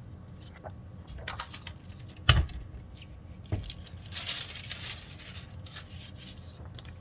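Hands laying a sublimation print onto a pillowcase: light clicks and paper rustling, a sharp knock a little past two seconds in, a smaller knock about a second later, and a longer papery rustle around the fourth and fifth seconds.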